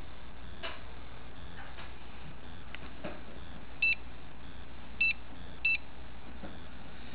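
Three short electronic beeps at the same pitch from a small device: one about four seconds in, then two more close together about a second later, over a steady low hum.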